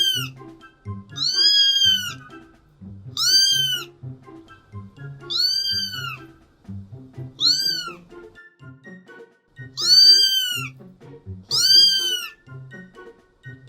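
A cat meowing repeatedly in high-pitched calls that rise and then fall, about seven meows roughly two seconds apart, over background music with a steady beat.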